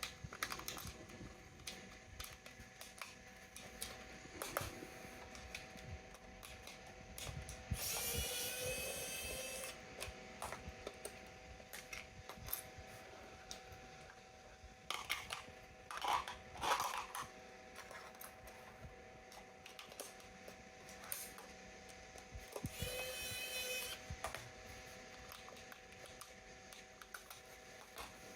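Plastic clicks and handling of a toy RC car. Twice, a small electric motor and its gears whir briefly, about eight seconds in and again near the end.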